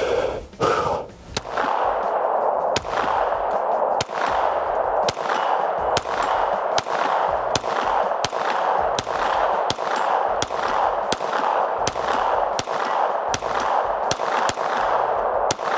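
9mm Canik Rival semi-automatic pistol fired in a rapid timed string, about one shot every two-thirds of a second at an even pace.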